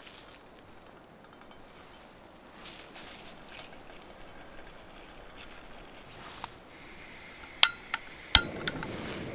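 Gas-cartridge camping stove being lit: the gas valve opens with a steady hiss, the igniter clicks four times, and the burner catches and burns with a steady rushing sound.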